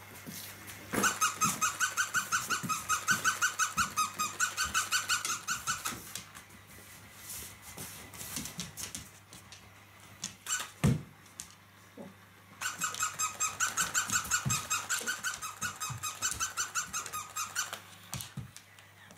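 A labradoodle chewing a plush squeaky toy, the squeaker going off in two rapid runs of short, evenly repeated squeaks, each about five seconds long. Between the runs come a few knocks and one sharp thump.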